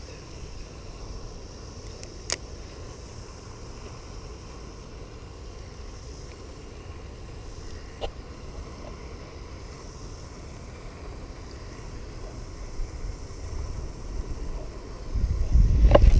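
Wind rumbling on a chest-mounted action camera's microphone, a steady low noise that swells loudly near the end, with two sharp clicks, the first about two seconds in and the second about eight seconds in.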